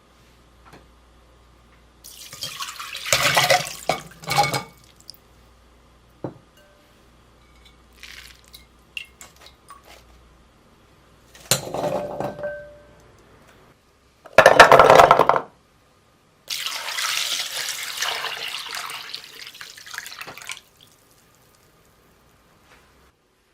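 Water being handled in a kitchen: a few short splashes and pours, the loudest about halfway through, then about four seconds of steady pouring or running water.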